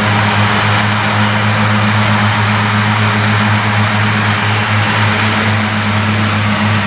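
Claas Cougar 1400 self-propelled mower running steadily while cutting grass: a strong, even low hum with a dense rushing noise above it.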